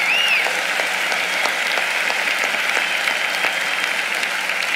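Large audience applauding steadily in a big hall, with one short high whistle from the crowd near the start.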